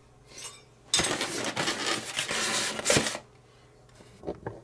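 Foam-and-plastic packaging of a boxed scale model being handled: about two seconds of loud rustling and rubbing with a sharp click near the end, then a few light clicks.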